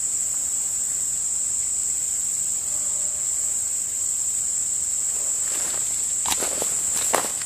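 Steady high-pitched chorus of summer insects. From about five and a half seconds in, footsteps on the gravelly creek bank join it.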